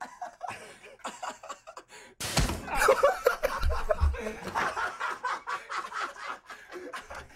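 Men laughing hard. The laughter breaks out suddenly and loudly about two seconds in after a quieter start.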